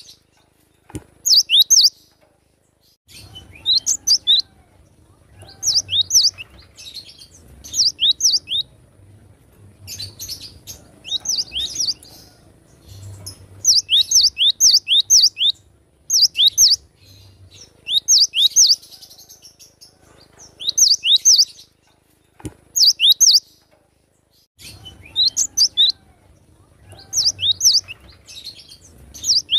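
Cinereous tit (glatik batu) singing in quick phrases of three to five sharp, high, downward-sliding notes. A phrase comes about every one to two seconds, with brief pauses between.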